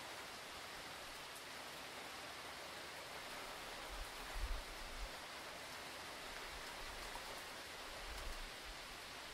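Steady hiss of hurricane rain falling. Brief low rumbles come in about four seconds in and again near the end.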